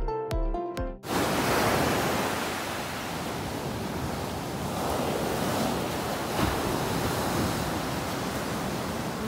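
Intro music that cuts off about a second in, followed by ocean surf breaking and washing up a sandy beach, the rush swelling and fading with each wave.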